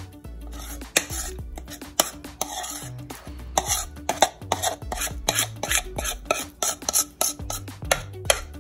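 Background music with a steady beat and bass line, over a utensil scraping thick cake batter out of a bowl into a stainless-steel pot, with light clinks of metal on metal.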